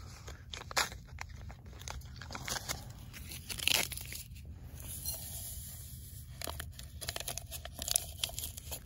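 Paper drink-mix packet crinkling and tearing as it is opened and handled, with scattered sharp crackles and a louder rustle about three and a half seconds in. A steady low rumble runs underneath.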